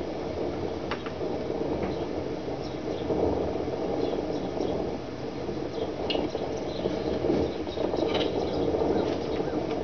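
A steady rushing hiss with a few faint crackles and clicks, as bald eagles shift sticks and dry grass in their nest.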